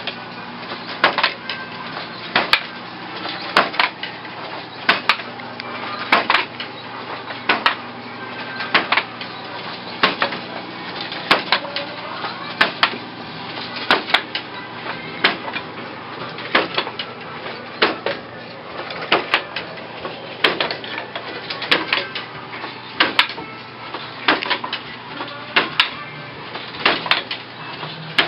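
Wooden floor loom being woven on at a steady pace: groups of sharp wooden clacks and knocks about every second and a quarter, as the heavy hand-thrown shuttle crosses the loom, the beater is pulled against the cloth and the shafts change.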